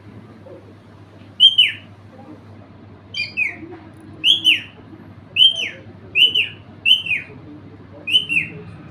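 Pet parrot giving a series of about seven short, high chirping calls, each sliding downward in pitch, some doubled, roughly a second apart.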